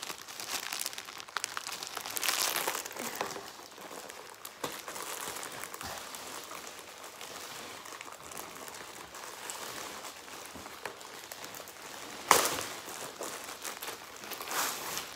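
Clear plastic wrapping crinkling and crackling as it is handled and pulled at to open a bag. There is one sudden loud crackle about twelve seconds in.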